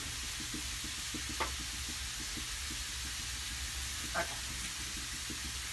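Beef roast searing in a hot frying pan on a gas burner, a steady sizzle, with two light taps about a second and a half and four seconds in.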